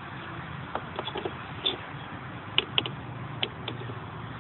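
Adjustable wrench clinking against a car battery terminal clamp nut as the nut is worked loose: about ten sharp, irregular metal clicks over a steady low background hum.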